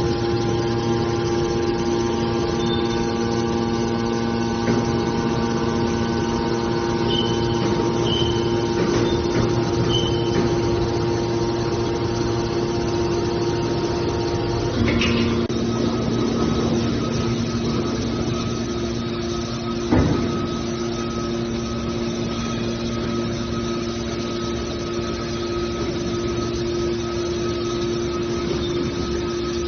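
Hydraulic scrap-metal baler running with a steady machine hum from its power unit. The hum changes character about halfway through, and a single sharp knock comes about two-thirds in.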